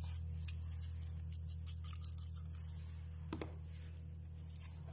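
Black pepper being shaken or ground over the salmon: a run of small dry ticks and scratches, with two sharper clicks a little past halfway, over a steady low hum.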